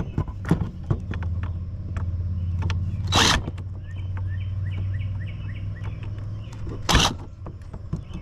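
Plastic and metal clicks and knocks as a glued circuit board is pried out of an old radio chassis, with two sharp cracks, one about three seconds in and one near seven seconds, as it breaks loose. A steady low hum runs under most of it, and birds chirp in the background.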